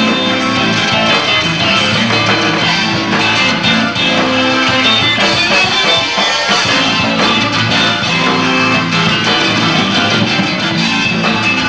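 Live rock band playing loudly, with electric guitar and drums.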